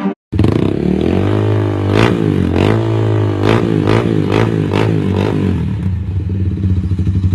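Modified aftermarket exhaust on a GPX Demon 150GR single-cylinder motorcycle engine, revved in a series of quick throttle blips that rise and fall back, then settling to a steady, pulsing idle near the end.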